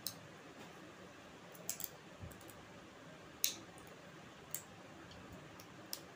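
Fingers mixing rice on a plate while eating by hand: about five short, sharp clicks of fingers against the plate, the loudest a little past halfway.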